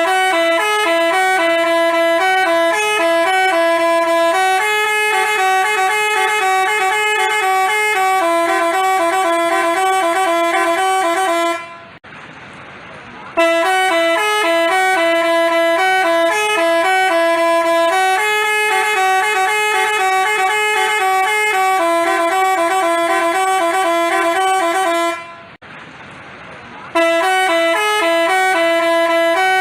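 Basuri telolet bus horn playing its multi-note stepping melody, a tune of about eleven seconds that stops briefly twice and starts over from the beginning each time.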